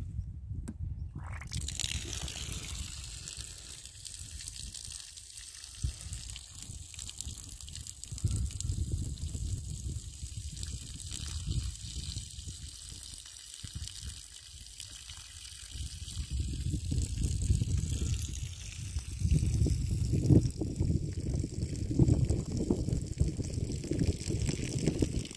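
Water from a homemade siphon running out of an opened plastic ball valve in a thin stream and splashing onto dry ground, a steady trickling hiss that starts about a second and a half in. Under it is a fluctuating low rumble that is loudest in the second half.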